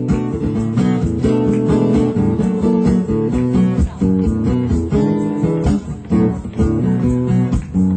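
Acoustic guitar strummed in a quick, steady rhythm, playing an instrumental passage of a song with no voice over it.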